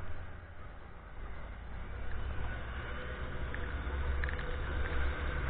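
Motorcycle engine running under way with wind noise, the low engine sound growing louder from about a second in.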